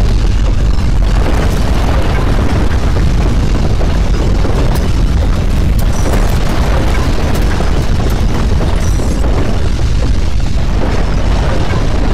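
Loud, continuous deep rumbling noise with a crackling edge and no pauses: an earthquake rumble of violent ground shaking.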